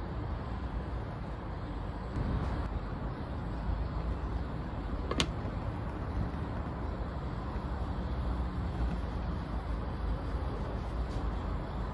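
Steady low outdoor rumble of road traffic. About five seconds in there is one sharp clink as a glass lid is set on the frying pan.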